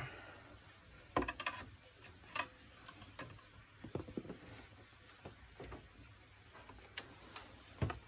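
Faint, irregular clicks and light taps of a shoelace being poked in behind a front-loading washing machine door with a screwdriver, the tool knocking against the door and cabinet.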